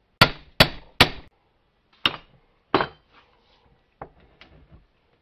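Hammer blows on steel, driving a universal-joint bearing cap into the yoke ear of an axle stub shaft. Three quick hard strikes, then two more spaced out, and a few lighter taps near the end.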